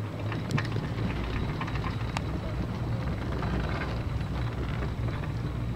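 Steady low rumble of a 1974 Marchisio two-seat chairlift running, heard from a chair as it rides up the line, with two sharp clicks about half a second and two seconds in.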